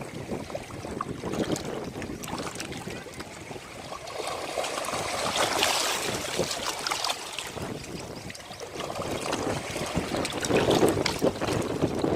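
Ocean waves washing onto a beach, a continuous rush with fine fizzing crackle that swells about halfway through, eases, then builds again toward the end.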